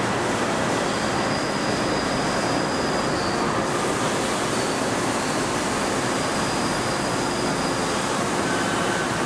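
Crankshaft finish-polishing machine running steadily, spinning a nitrided crankshaft while an abrasive strip is held against the journals to polish off the nitride layer. It makes a steady rushing noise with a faint high whine over it.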